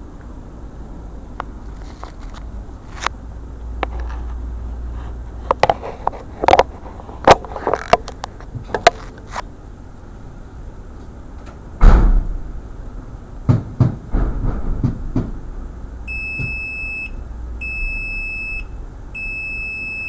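Scattered clicks and knocks, with a heavy thump about twelve seconds in, then three evenly spaced electronic beeps of about a second each near the end, set off as the Audi A4 instrument cluster is handled and checked.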